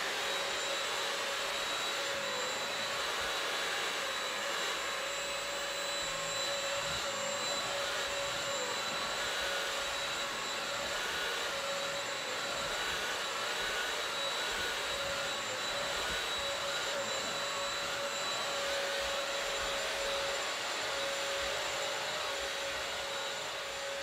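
Bissell CrossWave wet-dry vacuum mop running in rug mode while it is pushed over an area rug. It makes a steady, loud motor whine over a rushing suction hiss.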